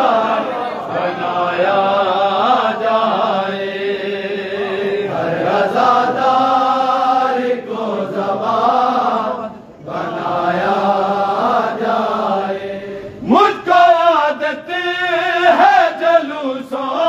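Many men's voices chanting a noha, a Shia mourning lament, together without instruments. The chanting breaks off briefly about ten seconds in. Near the end a single voice slides sharply upward as a new line starts.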